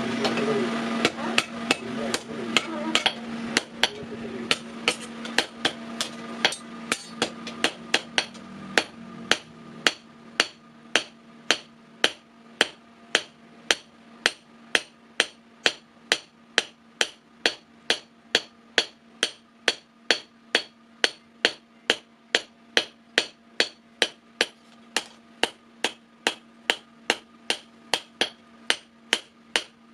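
Blacksmith's hand hammer forging a steel sickle blade on an anvil, with sharp, ringing blows in a steady rhythm of about two a second. A steady hum with noise underneath is louder for the first few seconds and dies down by about nine seconds in.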